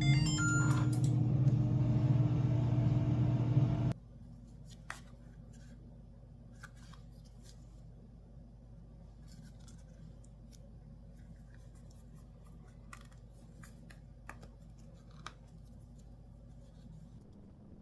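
A steady low hum cuts off suddenly about four seconds in. Then faint, scattered clicks and taps follow in a quiet room, like small objects being handled.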